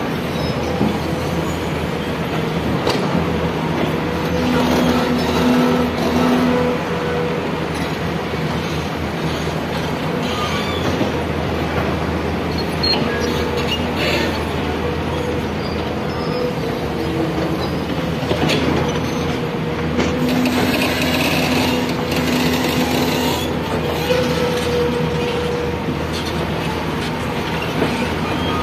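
Excavator digging: diesel engine running steadily under load, with a hydraulic whine that comes and goes and now and then a metallic clank.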